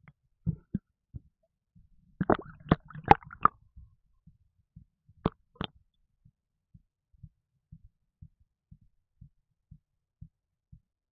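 Stomach and bowel gurgling heard close to the belly, from gas after drinking a can of Red Bull energy drink: a short burst of pops and gurgles about two seconds in, two sharp pops a little later, and a soft regular thump about twice a second underneath.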